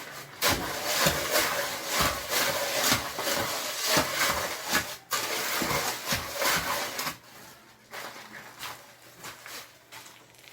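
Shovel mixing concrete by hand, with repeated rough scraping strokes, about one or two a second. The strokes stop about seven seconds in, leaving only a few faint scrapes.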